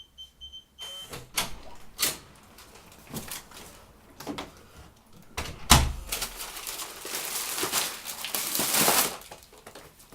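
A few short high electronic beeps at the start, then scattered knocks and clicks, a heavy thump about six seconds in, and several seconds of rustling, scraping noise, like a door and handling of things.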